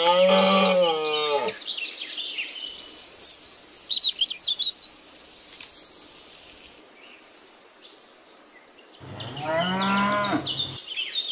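A cow mooing twice: one moo at the very start and a second about nine seconds in, each about one and a half seconds long and rising then falling in pitch. Between the moos come short high chirps and a steady high insect-like hiss.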